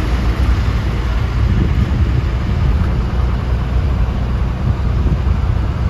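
Steady road noise of a moving car heard from inside the cabin: a continuous low rumble of tyres and engine with a fainter hiss above it.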